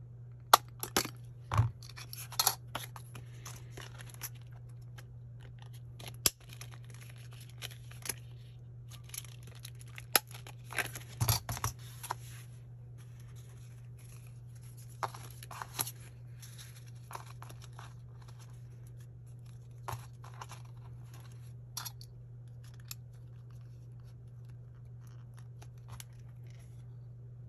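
A 3/16-inch hand hole punch clicking and snapping as it punches holes through paper and a clear plastic guide, mixed with rustling and small clicks as the sheets are handled. The clicks come thickest in the first dozen seconds and then only now and then, over a steady low hum.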